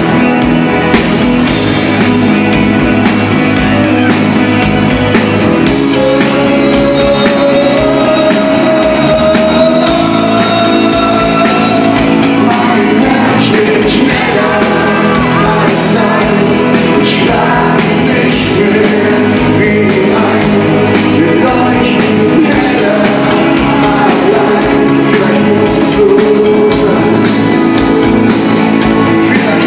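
Live pop-rock band playing loudly: a male lead singer over acoustic guitar, drums and keyboard. The vocal comes in about six seconds in.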